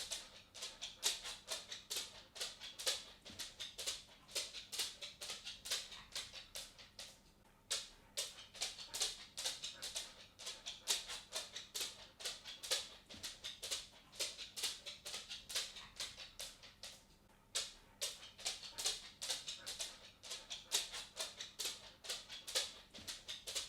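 Dog's claws clicking on a wooden floor as it walks: a quick, uneven run of sharp ticks that pauses briefly twice, about a third of the way in and again past the middle.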